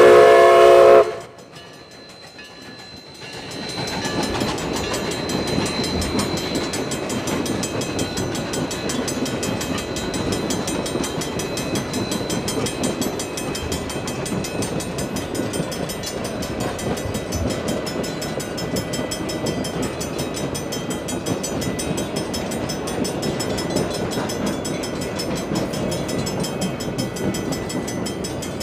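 Steam whistle of Huckleberry Railroad narrow-gauge steam locomotive 152 sounding a loud chord that cuts off about a second in. After a brief quieter moment, the train's steady running noise, wheels on the rails, as it rolls past.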